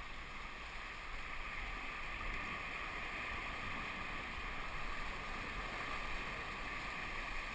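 Steady rushing wash of ocean water against rocks, mixed with wind noise.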